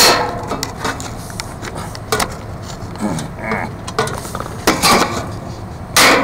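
Metal clanks and knocks from a wrench and the ball-valve handles on a backflow preventer being worked to shut the water off. The knocks come a second or two apart, with the loudest right at the start and near the end.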